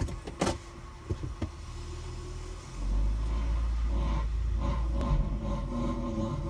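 A car with a loud grinding, scraping noise from the right front wheel area. A few knocks come first, then a steady low rumble sets in about three seconds in as the car gets going.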